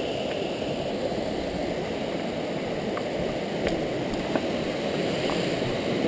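Steady rushing of a rocky mountain stream running over small cascades, with a few faint clicks past the middle.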